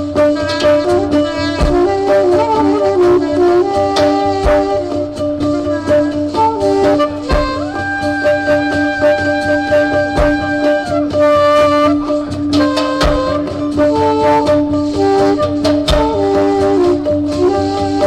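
Live Turkish folk music: bağlama plucking a melody over a steady drone, with a wind instrument holding long notes and a deep drum beat about every three seconds.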